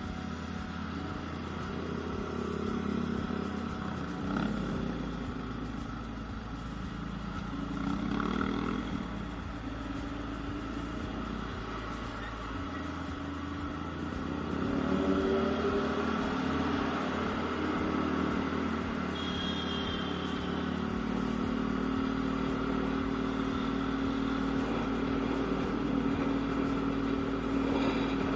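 Yamaha Aerox scooter engine running while riding, with the engine pitch rising and falling and a steadier drone in the second half.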